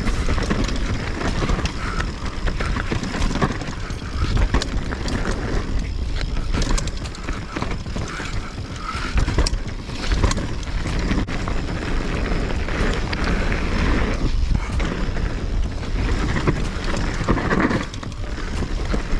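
YT Capra mountain bike descending a loamy dirt trail: a steady rush of wind on the action camera's microphone over the rumble of tyres on dirt, with frequent small clicks and rattles from the bike.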